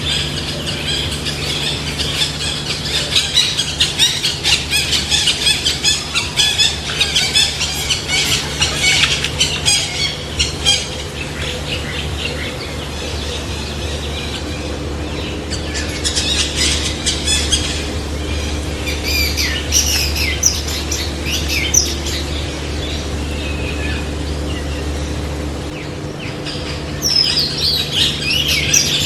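A flock of farm bird chicks peeping and chirping, a dense high-pitched chatter for about the first ten seconds that thins out, then comes back in shorter bursts later, over a steady low hum.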